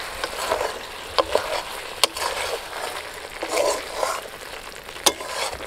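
Chicken pieces sizzling in oil in a metal kadai as they begin to release their juices, while a spatula stirs and scrapes them. A few sharp clacks of the spatula against the pan stand out above the steady sizzle.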